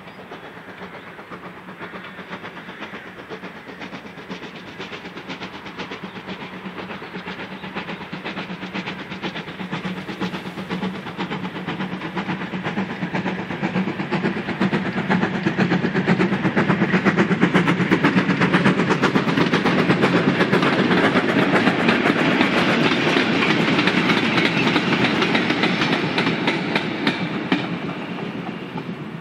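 Steam locomotive hauling a goods train, its exhaust chuffing in a rapid even beat over the run of the wheels on the rails; it grows louder as it approaches, is loudest a little past the middle as it passes, and fades as it draws away.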